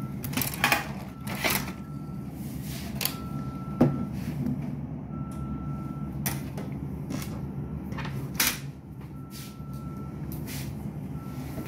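Clacks and knocks of plastic laser-printer cover panels being handled and set down on a wooden table. A single-pitched electronic beep repeats about every two seconds throughout.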